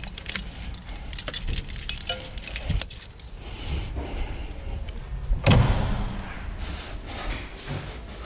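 Metal jangling and clicking of a bicycle lock being fastened around a pipe, then a single loud thud about five and a half seconds in.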